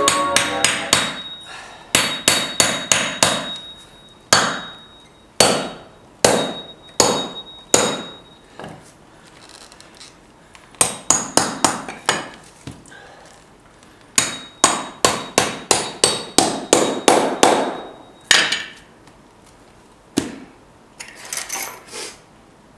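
Hammer driving common steel nails through a thick paperback into an oak block: sharp metal-on-metal blows in quick runs of about four a second, with short pauses between runs.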